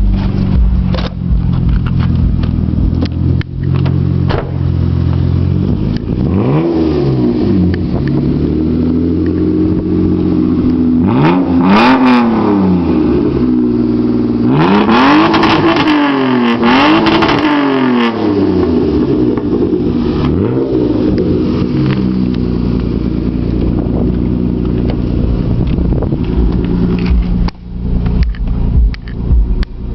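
Mitsubishi Eclipse GT's 3.0-litre 6G72 V6 running through a 2.5-inch straight-pipe exhaust with the third catalytic converter deleted and a single-chamber Flowmaster muffler. It idles steadily and is revved several times between about six and twenty-one seconds, the pitch climbing and falling back with each rev. The revs come closest together in the middle.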